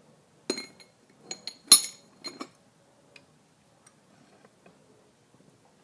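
Metal vise-handle parts knocking together: about six sharp metallic clinks with a brief ring, bunched in the first two and a half seconds, the loudest near the middle. Only a few faint small knocks follow.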